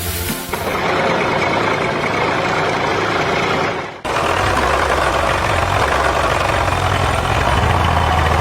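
Engine running steadily. The sound drops out for an instant about four seconds in and picks up again.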